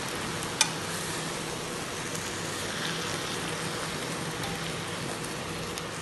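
Seasoned beef steaks frying in oil in a hot pan, a steady sizzle, with one sharp click about half a second in.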